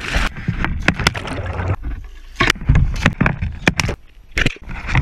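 Water sloshing around a small boat, with a run of sharp knocks and clinks over a low rumble.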